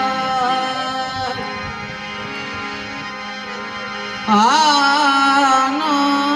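Harmonium playing sustained chords. About four seconds in, a man's voice comes in strongly, singing a long held note with ornamental bends.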